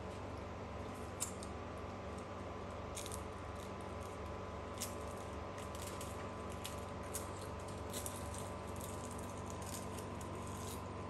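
Steady hum of room tone, with scattered small sharp clicks and crinkles of plastic snack containers being handled.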